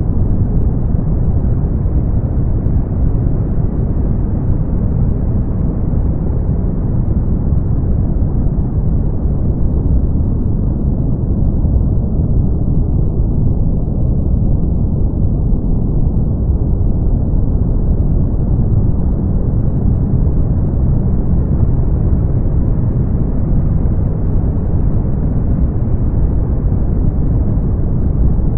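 Brown noise: a steady, deep hiss with most of its weight in the low end and little above the upper midrange. Its top edge dulls and brightens slightly over several seconds.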